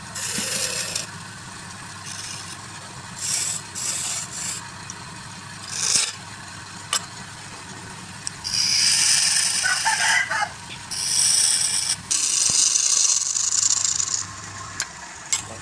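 Woodworking lathe turning a piece of wood while a tool is worked against it in repeated short passes, over a steady low motor hum.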